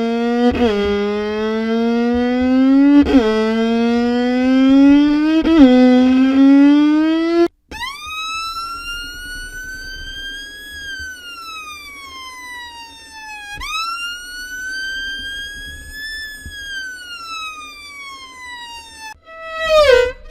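Violin imitating a siren: a low note climbs slowly and drops back sharply three times, then the pitch jumps up into two long slow wails that rise and fall, and near the end breaks into fast repeated swoops.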